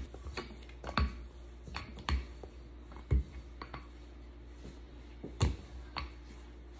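Rolling pin rolling out pie dough on a granite counter: scattered sharp knocks and taps as the pin and its handles bump the counter, over a low steady hum.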